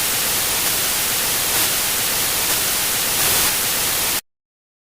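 Loud, even hiss of static white noise that cuts off suddenly about four seconds in.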